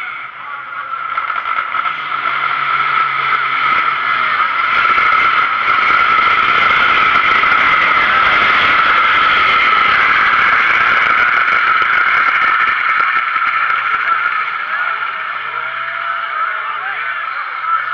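Two diesel semi-truck tractors racing side by side at full throttle. The engine noise builds as they approach, is loudest from about five to eleven seconds in as they pass close by, then eases off. Crowd voices are underneath.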